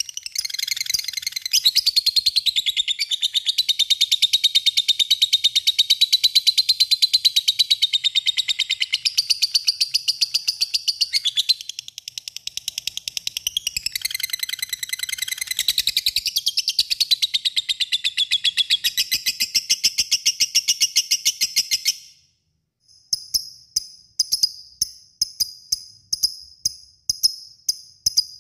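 Lovebird giving its long chattering trill (ngekek panjang), a fast unbroken run of shrill notes for about twenty seconds that stops abruptly. After a short pause comes a string of short, high tinkling clicks, about three a second.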